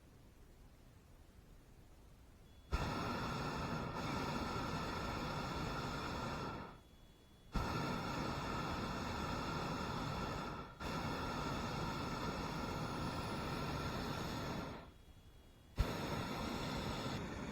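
Hot air balloon's propane burner fired in three long blasts, each switching on with a sharp click and running as a steady roar for several seconds, with short pauses between.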